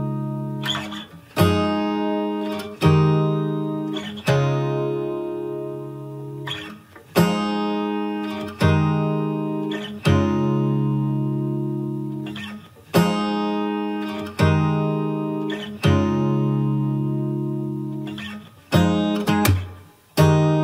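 Background music: a guitar strumming chords, each struck and left to ring and fade, a new chord every second and a half or so, coming quicker near the end.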